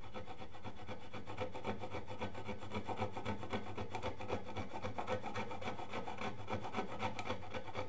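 A 1.5-inch chisel wrapped in sandpaper is rubbed back and forth against the wood in a tight interior corner of a CNC-carved plaque. It makes a steady scratchy sanding sound in quick, short strokes.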